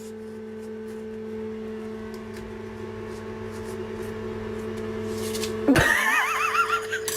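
Electric trimmer motor humming steadily on one pitch, growing gradually louder. Near the end a sudden loud, high, wavering sound breaks in over it.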